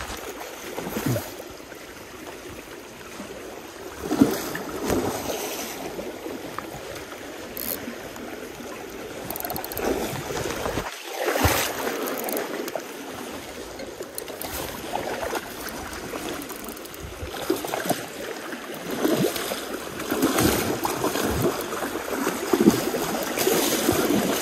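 Fast, shallow river current rushing and splashing close by, with irregular knocks and bumps up close through it.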